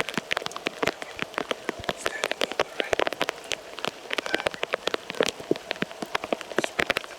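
Rain falling, with large drops tapping densely and irregularly on a hard surface close to the microphone.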